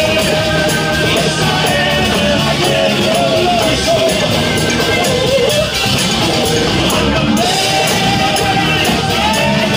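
A live rock band playing with electric guitars, drum kit and keyboards, a man singing a wavering lead line over it.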